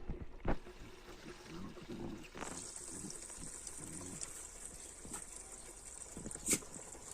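Dogs play-fighting: scuffling and mouthing at each other, with two sharp knocks, one about half a second in and one near the end.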